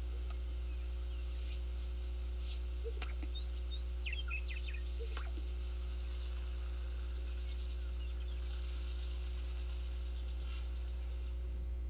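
Greater sage-grouse lek recording played through a hall's sound system: faint bird calls and chirps over a steady low hum, with a fast, high trill from about halfway to near the end.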